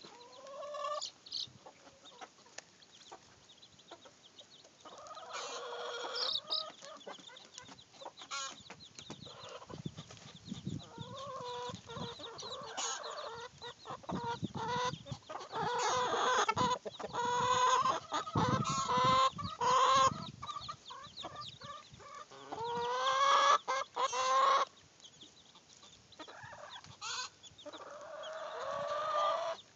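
Backyard chickens clucking and calling while they feed, in irregular runs of short clucks. The calls come thickest in the middle, and there are a few longer drawn-out calls about three-quarters of the way through.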